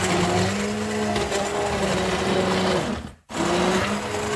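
Bosch hand-held immersion blender, about 10 to 15 years old, buzzing steadily as it purées vegetable soup in a stainless pot. It stops for a moment about three seconds in and starts again.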